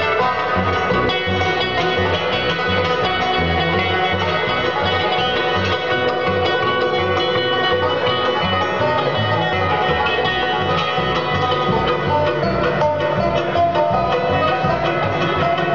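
Live bluegrass band playing an up-tempo instrumental: rapid banjo picking over guitar, with an even bass pulse about twice a second.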